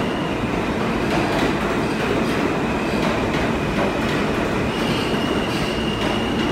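New York City subway train running past through the station: a steady loud rumble and rattle of steel wheels on the rails. A thin, steady high squeal comes in about two-thirds of the way in.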